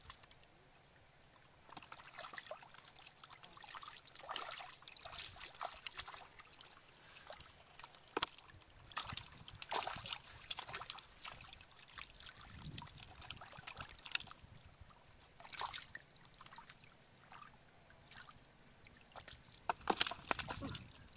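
Hands and bare feet splashing and sloshing in shallow muddy water while groping for fish, in irregular bursts with a few sharper splashes, the loudest about eight seconds in and near the end.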